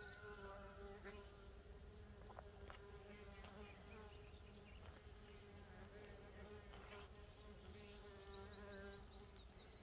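Faint buzzing of mason bees in flight around their nest holes, a steady hum whose pitch wavers slightly.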